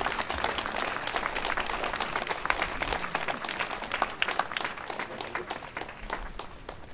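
Crowd applauding: dense clapping that thins out and fades away near the end.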